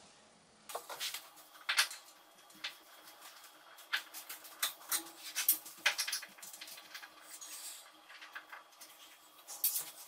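Irregular light clicks and knocks of hand work on metal at the top of a built-in dishwasher as its mounting screws are backed out, starting about a second in.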